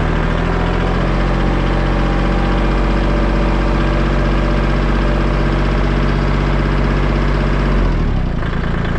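Kubota L2501 compact tractor's three-cylinder diesel engine running steadily while the tractor drives, heard close up from its hood. The engine note dips briefly near the end, then carries on.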